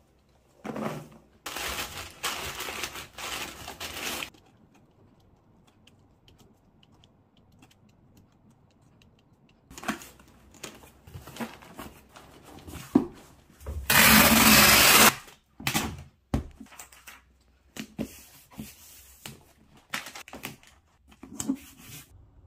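Packing a cardboard shipping box: foam packing peanuts rustling in a few short bursts, then hands moving and pressing cardboard with scattered rustles and taps. One loud noisy burst lasting about a second comes in the middle.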